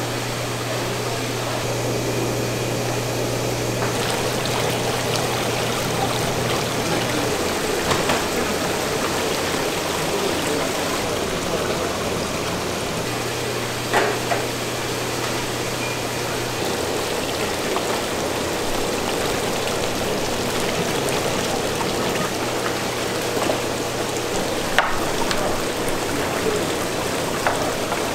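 Water running and splashing steadily in aerated live-seafood tanks, with a low machine hum that cuts out about seven seconds in and comes back for a few seconds mid-way. A few light knocks.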